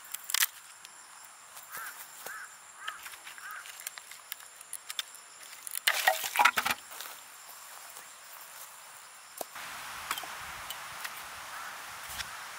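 Outdoor camp sounds: a sharp knock, then four short chirping calls in the first few seconds, and a burst of clattering knocks about six seconds in.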